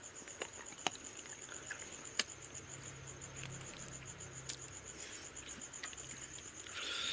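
Chewing and sharp mouth clicks of a person eating rice and fish curry by hand, with a steady high-pitched pulsing trill in the background.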